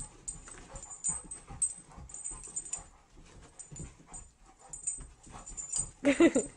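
A dog panting hard and scuffling about, out of breath after rough play, with a short wavering whine about six seconds in.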